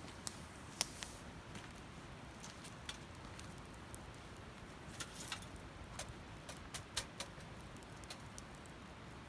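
Wood fire crackling: irregular sharp pops and snaps, the loudest about a second in and a cluster between about five and seven seconds in, over a low steady hiss.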